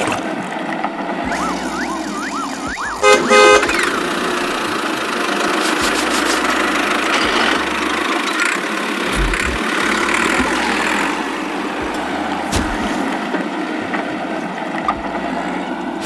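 Busy mechanical vehicle noise with a short, loud horn-like blast about three seconds in, just after a few rising whistle-like tones.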